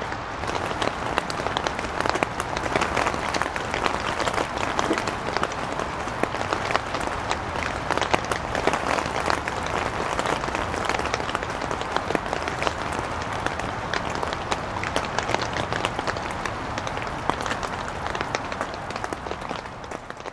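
Steady heavy rain falling, a dense hiss of countless fine drop ticks.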